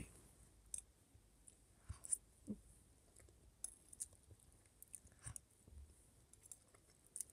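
Faint chewing and scattered light clicks of a spoon against a bowl as mouthfuls of rice are eaten, otherwise near quiet.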